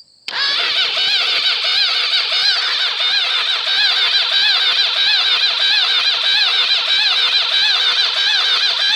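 Electric starter cranking an engine that turns over hard, with a whine that rises and falls in pitch as each compression stroke slows it; the owner puts the hard turning down to failing connecting rod bearings.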